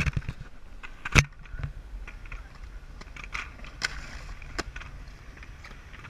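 Inline skate wheels rolling over concrete: a steady low rumble with a few sharp clicks, the loudest about a second in.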